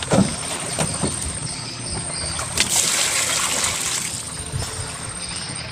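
Water poured from a bucket into a foam cooler full of shrimp, splashing and trickling, at its strongest about three seconds in.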